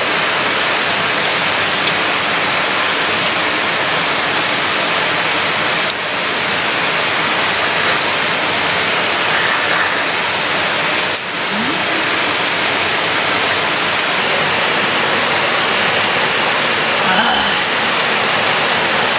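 Heavy rain falling steadily, a constant hiss of downpour.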